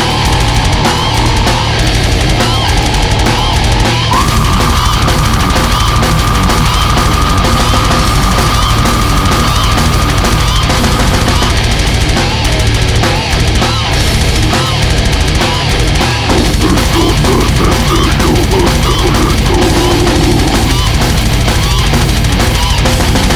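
Heavy metal music: loud, dense distorted guitars and pounding drums, with a high note held from about four to eleven seconds in.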